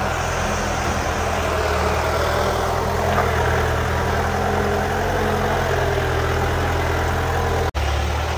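Off-road vehicle's engine running steadily, with a brief break near the end.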